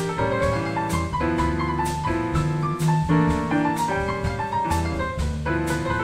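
Grand piano playing a jazzy instrumental passage, chords and melody notes struck at an even pace of about two a second.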